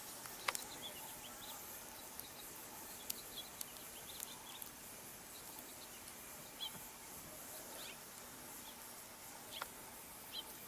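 Faint outdoor ambience with birds chirping now and then, short high calls scattered through, and a few sharp clicks, the loudest about half a second in.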